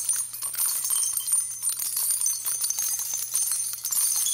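A title-card jingle sound effect: a high, bright jingling and tinkling like small bells, full of quick clicks, over a faint steady low hum.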